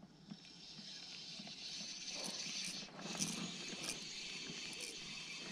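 A spinning reel being cranked to bring in a hooked fish, making a steady whirring hiss with a few short clicks. It builds and grows louder after the first second.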